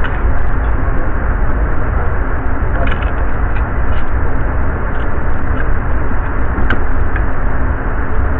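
Steady low rumbling background noise with a few faint clicks as a pistol-calibre drum magazine is handled.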